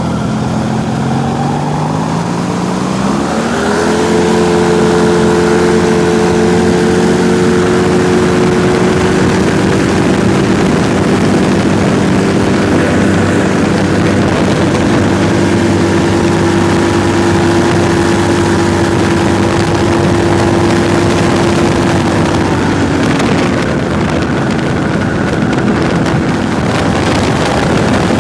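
Ultralight trike's engine and propeller throttling up over the first few seconds for the takeoff run, then holding a steady high power through the climb-out and easing back slightly near the end, with wind rushing past the microphone.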